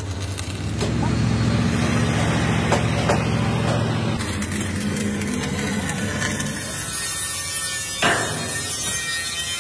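An engine running steadily with a low hum, louder for a few seconds about a second in, with a few light knocks and one sharper knock near the end.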